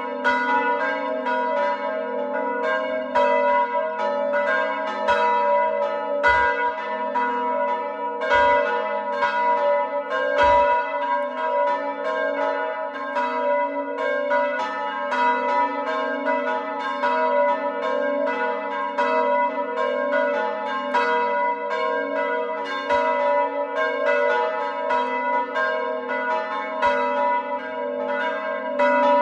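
A set of four manually rung church bells ringing a continuous, rapid peal, the strikes overlapping several times a second. The largest bell, in A (La3), was cast by De Poli in 1921; the other three were cast by Paolo Capanni in 1951.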